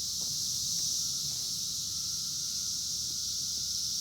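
Steady, high-pitched chorus of insects droning without a break, with a low rumble underneath.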